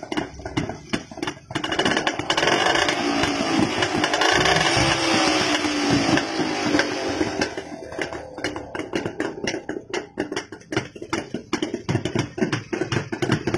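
Two-stroke Jawa-Yezdi motorcycle engine running through its chrome silencer, revving up and down in the first half, then dropping back to an uneven idle of rapid exhaust pops.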